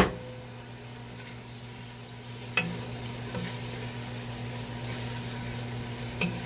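Ground beef frying in a pot with chopped tomato and onion, sizzling steadily. There is a sharp knock at the start and two lighter clicks later.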